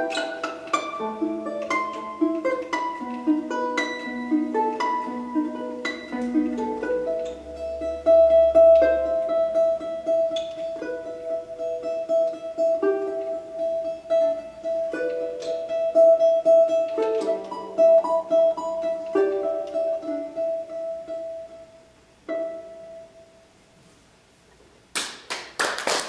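A domra is played: plucked notes with a high note held through the middle of the passage. The piece ends on a last plucked note about 22 seconds in, which rings away, and applause starts near the end.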